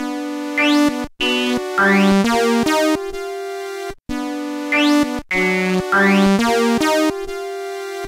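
Several raw wavetable-synth sounds layered together, each wavetable made from the step-by-step output of a sorting algorithm run on the samples of a sine wave. Bright, brassy held notes change every half second or so, their upper overtones sweeping upward. The same four-second phrase plays twice, then cuts off.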